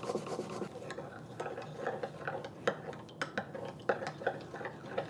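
A few rasping strokes of garlic on a stainless steel hand grater, then a metal spoon stirring teriyaki sauce in a glass measuring cup, clinking irregularly against the glass as the sugar is dissolved.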